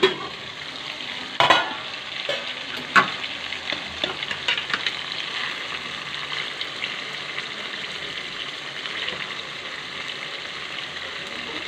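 Chicken curry sizzling in its released oil in an aluminium pan while a spatula stirs and scrapes through the pieces. Two sharp metal clanks about one and a half and three seconds in, as the steel lid comes off the pan.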